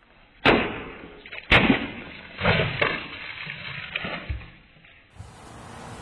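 A long blade striking plastic bottles filled with liquid that are stacked on a post: two sharp hits about a second apart, then several softer knocks. Near the end a steady outdoor hiss begins.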